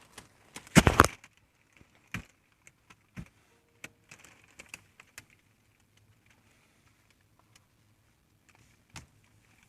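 A handheld diagnostic scan tool's buttons being pressed: scattered short clicks and taps, the loudest about a second in, as the scanner's menus are stepped through to the engine computer module.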